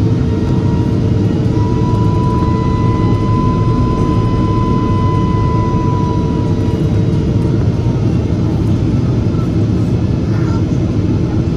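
Steady jet engine and airflow noise inside a Boeing 777's passenger cabin, with a thin whine that comes up about two seconds in and fades away a few seconds later.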